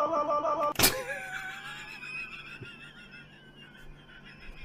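A held sung note cuts off with a sharp click about a second in. Then comes a man's high, wavering wheezing laugh that goes on quietly to the end.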